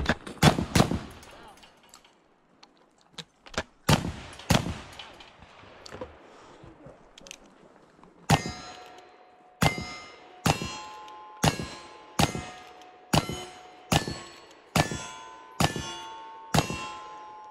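Shots from a side-by-side 12-gauge shotgun loaded with black powder in the first few seconds. Then ten evenly paced shots from two .38 Special Pietta Great Western single-action revolvers, a bit more than one a second, each followed by the clang and ring of the steel target it hits.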